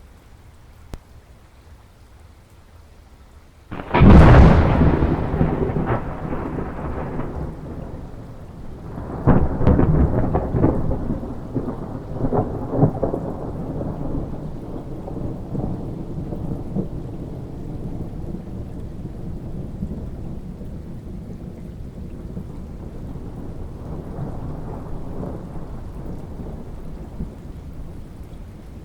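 Thunderstorm: rain falls steadily, and about four seconds in a sudden loud thunderclap breaks and rolls into a long rumble. A second loud peal comes about nine seconds in, and the thunder rumbles on, slowly fading under the rain.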